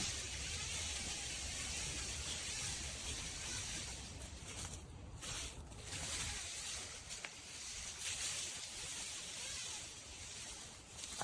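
Steady hiss of background noise over a low rumble, the rumble easing after about six seconds.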